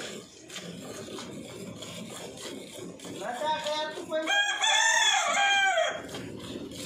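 A rooster crows once, a long call in two parts beginning about three seconds in, the second part louder and held before it breaks off.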